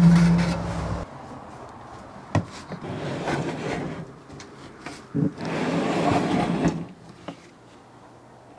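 Sheet-metal parts of an electric smoker being handled: scraping and rubbing of metal with a few sharp knocks, as the heating element's cover is pulled out of the cabinet. A steady low hum stops abruptly about a second in.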